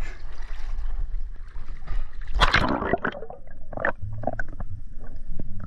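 Sea water splashing and gurgling around a diver's camera, with scattered knocks and a louder rush about two and a half seconds in.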